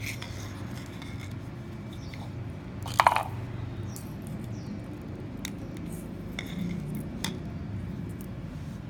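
Handling noise as hands work the fishing line close to the microphone: scattered light clicks and taps, with one louder clink about three seconds in, over a steady low hum.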